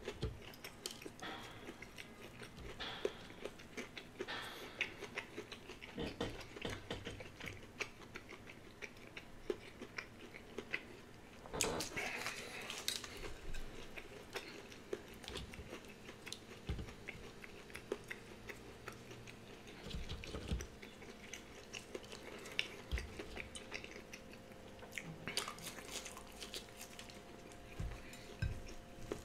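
Close-up chewing and biting of breaded chicken nuggets, with many small wet clicks and crackles of eating and light taps on a plate. There is a louder stretch about twelve seconds in.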